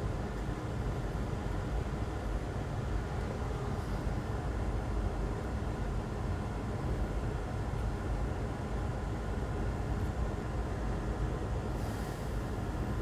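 Steady low hum and hiss of a running fan, unchanging throughout, with a brief soft hiss near the end.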